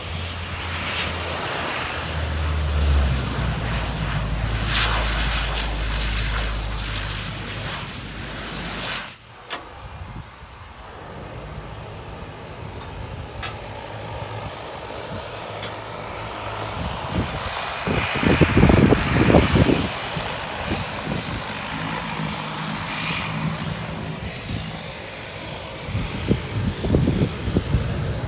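Turboprop airliner engines and propellers running on the airfield: a steady drone with a low hum that cuts off abruptly about nine seconds in, then a quieter drone with louder swells later on.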